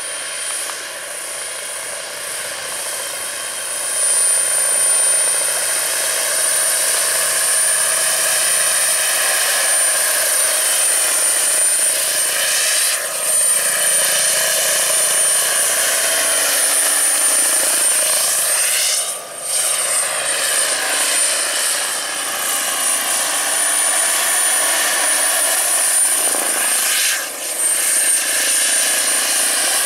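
Turbine-powered RC scale Bell 206B JetRanger III model helicopter in flight: a steady high turbine whine over the rotor noise. It grows louder about four seconds in and dips briefly a few times as the helicopter manoeuvres.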